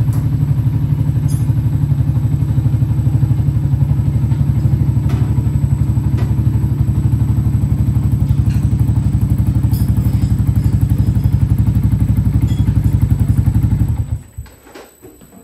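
Yamaha MT125's 125 cc single-cylinder four-stroke engine idling steadily through an aftermarket Akrapovic exhaust, then switched off and cutting out abruptly near the end.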